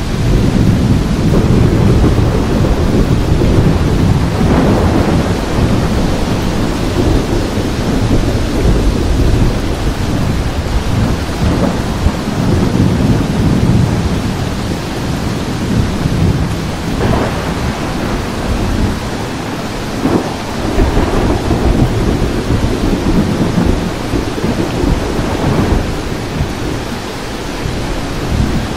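Heavy rain falling steadily, with thunder rumbling low and long underneath. The rumble is strongest in the first half, eases briefly about two-thirds of the way in, then builds again, and a few sharper claps break through.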